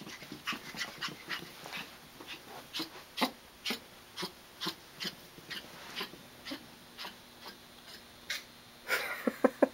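Chihuahua puppy racing around on carpet: a run of short, sharp sounds at about two or three a second, then a quicker flurry near the end.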